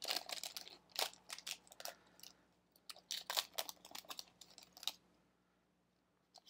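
Foil trading-card pack wrapper crinkling as cards are handled and pulled out, a run of sharp crackles and clicks that stops about five seconds in.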